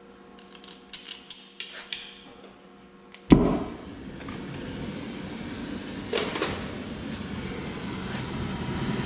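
Gas torch lighting: a few sharp clicks, then about three seconds in it catches with a sudden pop and runs with a steady rushing hiss of flame that slowly grows louder.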